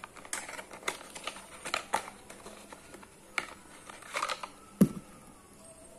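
A small cardboard carton being opened by hand: the flap is pulled open and the contents slid out, with irregular rustling, crinkling and scraping, and one sharp knock a little before the end.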